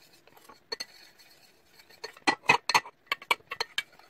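A plastic spoon clinking and scraping against a stainless steel pot while stirring a cornstarch mixture as it thickens on the stove. A few faint clicks at first, then a quick run of louder clinks from about two seconds in.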